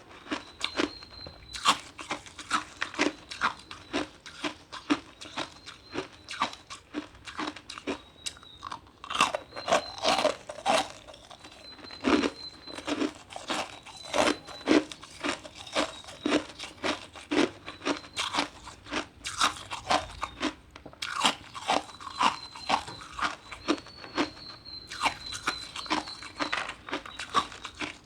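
Ice being bitten and chewed, a steady run of sharp crunches about two a second.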